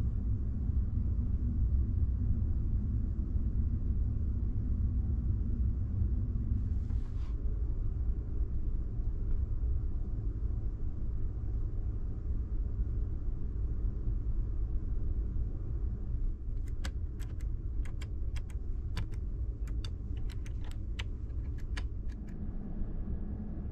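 Steady low rumble of the ferry's machinery heard inside a cabin. About two-thirds of the way through comes a quick run of sharp clicks lasting several seconds: buttons and switches on the bedside control panel being pressed.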